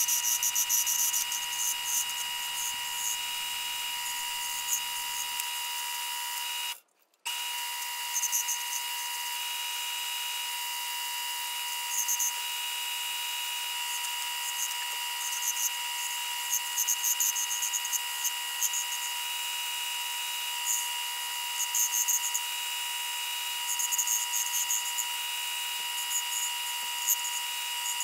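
Small wood lathe running with a steady whine while a hand-held turning tool cuts the spinning wooden blank, giving irregular short hissing scrapes as shavings come off. The sound drops out briefly about seven seconds in.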